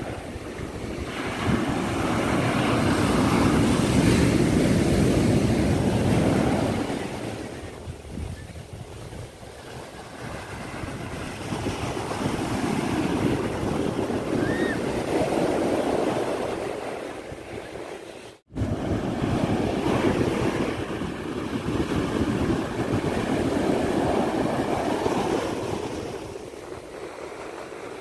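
Ocean surf breaking on a sandy beach and washing up the shore, swelling and fading in surges every several seconds. The sound cuts out for an instant about two-thirds of the way in.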